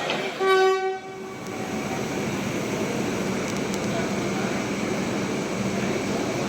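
Indian Railways train horn sounding one short blast of about a second, followed by the steady rumble of a train running through, growing slowly louder.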